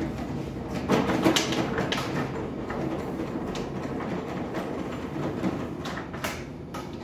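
Washing up at a kitchen sink: steady running-water noise with dishes and utensils clattering and knocking now and then, loudest about a second in and again near the end.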